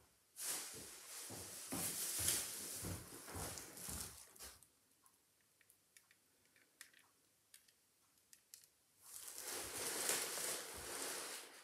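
Dry rolled oats rustling and crackling as they are handled by hand, in two spells, with light ticks of flakes dropping onto the inked collagraph plate in between.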